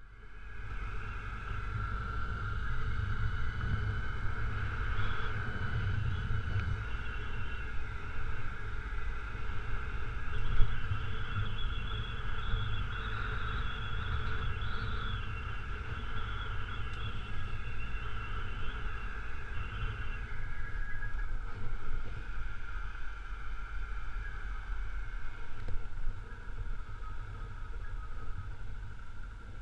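Honda CRF250L dual-sport motorcycle's single-cylinder engine running steadily while riding a gravel road, with a heavy low rumble. A single sharp knock sounds about ten seconds in.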